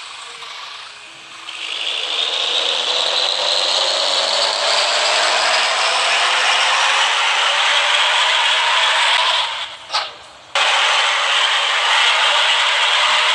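Repaired three-trumpet air horn set running with a continuous raspy, rattling hiss and no clear horn note. It cuts out briefly with a click about ten seconds in, then starts again.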